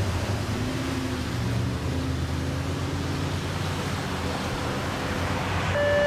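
Steady road traffic noise with a low rumble from passing cars. Just before the end a steady, sharp alert tone starts from a radio: the opening tone of a page ahead of the county's siren-test announcement.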